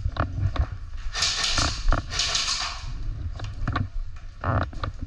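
Footsteps on a staircase and the rustle and knock of clothing and gear against a body-worn camera as players climb the stairs, with scattered sharp clicks and knocks and two longer hissing rustles about one and two seconds in.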